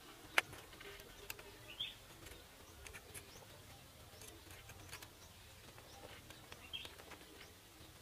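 Quiet outdoor background with scattered faint clicks and ticks from hands handling a wire cage trap and its stick, one sharper click about half a second in. Two short faint bird chirps, about two seconds in and again near the end.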